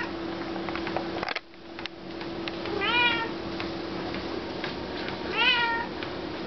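Calico cat meowing twice while trotting on a running treadmill, each call rising then falling in pitch. Under the calls runs a steady low hum with scattered light ticks.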